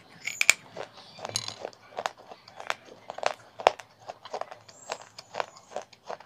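Baked-clay (terracotta) pot fragments being chewed dry in the mouth: a string of sharp, crisp crunches, roughly two a second.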